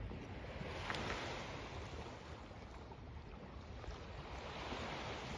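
Seaside ambience: wind and gentle sea waves washing, a steady rushing noise that swells about a second in and again near the end.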